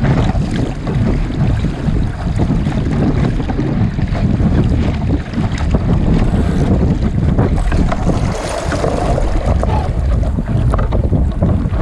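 Wind buffeting the microphone aboard a Sunfish sailing dinghy under way, a gusty low rumble, with water splashing and rushing along the hull.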